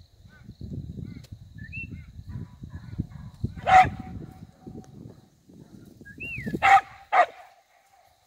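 Working dog barking at calves as it herds them: one sharp bark a few seconds in, then two more in quick succession near the end, over a low rumble.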